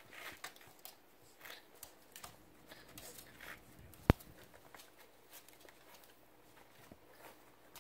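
Two Jack Russell terrier puppies chewing and tugging at a canvas shoe, making scattered soft gnawing, rustling and scraping sounds, with one sharp knock about four seconds in.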